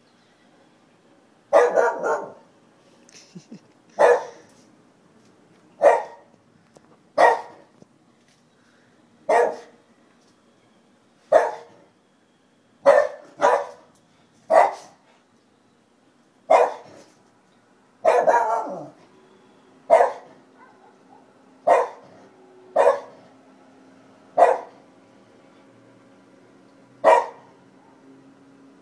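Shiba Inu barking repeatedly: single sharp barks about every one to two seconds, now and then two in quick succession, and one longer drawn-out bark about two-thirds of the way through.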